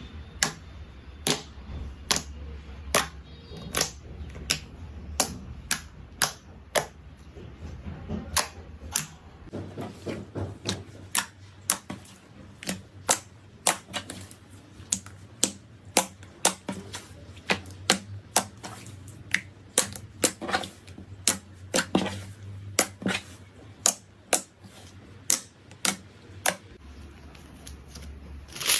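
Slime being pressed and worked by hand, making a long, uneven series of sharp popping clicks, about two a second, as air pockets in the slime burst.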